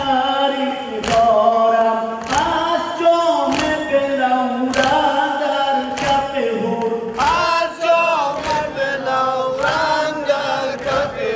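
A noha, a Shia mourning elegy, sung unaccompanied by male voices: a lead reciter on a microphone with a crowd of men singing with him. Throughout, the crowd strikes their chests in unison, about once every 1.2 seconds, beating time to the lament.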